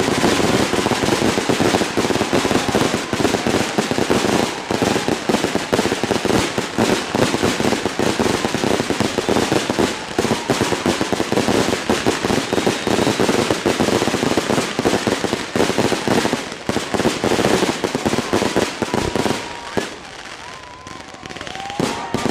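Aerial fireworks barrage: a dense, rapid run of bangs and crackling shells, thinning briefly near the end before more bursts go off.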